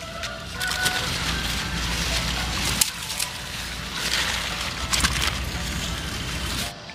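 Rustling of eggplant leaves and stems as long green eggplants are cut off the plant with scissors and gathered into a wicker basket, with a few sharp snips.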